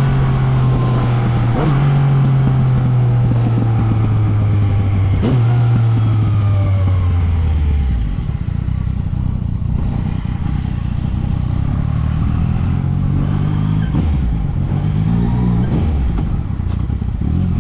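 Yamaha MT-09's three-cylinder engine on the move, its pitch falling as the bike slows with two quick jumps back up like downshifts, then running low and steady before picking up again with short revs near the end.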